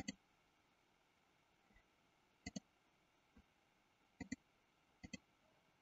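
Computer mouse button clicked four times at uneven intervals, each click a quick double tick.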